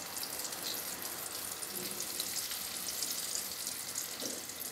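Besan pakoras deep-frying in hot oil: a steady sizzling hiss with fine crackling, as more batter is dropped in by hand.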